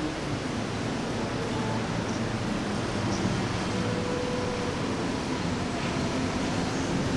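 Steady city traffic noise: a continuous even wash of sound with a faint low hum, and no single event standing out.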